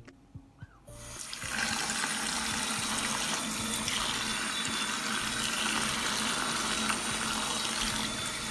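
Kitchen tap water running steadily over tomatoes in a colander in the sink, starting about a second in.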